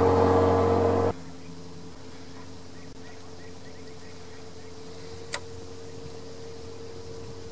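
A steady engine-like hum that drops off abruptly about a second in, leaving a fainter steady hum, with a single sharp click later on.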